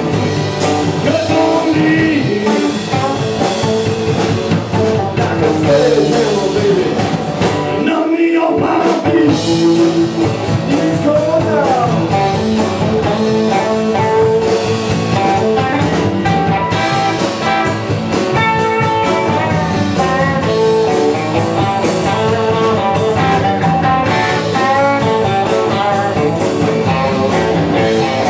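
Live blues-rock band playing, led by electric guitar with notes bending up and down over the band, with a brief drop-out of the low end about eight seconds in.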